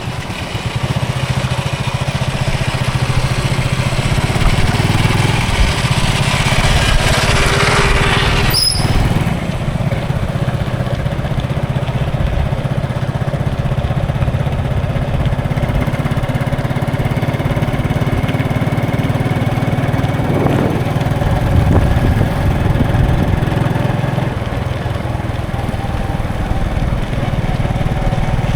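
Road traffic: a steady low engine hum with road noise. A vehicle swells up over a couple of seconds and ends in a sharp click about eight seconds in, and another swell comes about twenty-one seconds in.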